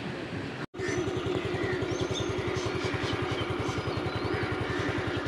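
After a cut under a second in, a small engine idling with an even, rapid beat, with birds chirping high above it.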